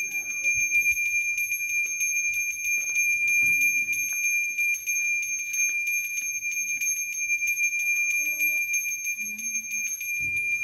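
Insects calling: a steady, high-pitched drone that pulses rapidly without a break.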